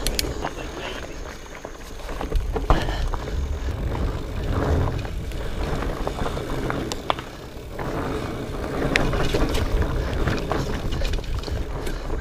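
Specialized Fatboy fat bike rolling over rocky singletrack: a steady rumble from the wide tyres, with scattered sharp clicks and knocks as the bike rattles over rocks.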